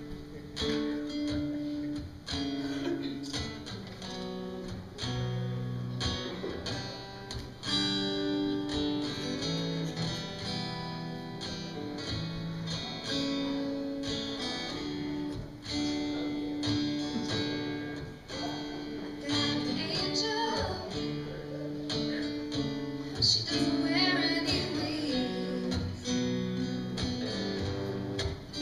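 Music led by acoustic guitar, with held notes changing every second or so.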